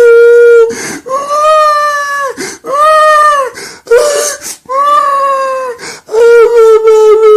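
A grown man crying like a baby: high-pitched, drawn-out wails, each about a second long and arching up then down, broken by sharp gasping in-breaths, about five cries in a row.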